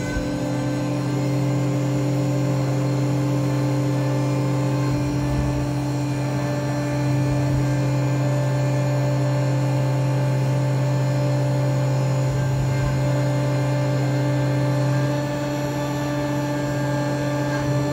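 Tormach 1100MX CNC mill's spindle running a 90-degree V-cutter through aluminium under flood coolant: a steady machine hum with a few fixed tones, a little louder from about seven seconds in. The spindle speed is set too low for this cutter, which the operator fears will crunch its tip.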